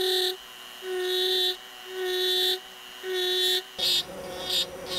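Handheld Dremel rotary tool with a burr bit cutting divots into walnut: the motor's whine swells each time the bit bites into the wood, about once a second. After about four seconds the pulses come shorter and quicker, at a higher pitch.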